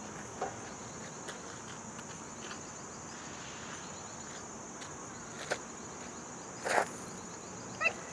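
Steady high-pitched drone of insects, with a few short sharp noises breaking through, the loudest about a second before the end.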